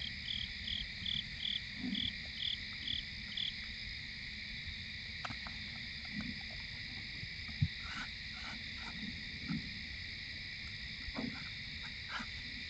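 Night insect chorus of crickets trilling steadily in several high pitches. For the first few seconds one insect chirps in a regular beat of about two or three a second. Soft low thuds and rustles come now and then.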